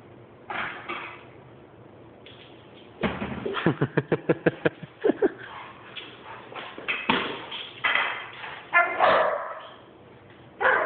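A black Labrador's paws and claws knocking on a hardwood floor as it bounces and jumps, a quick run of about ten knocks about three seconds in, followed by scattered louder scuffles.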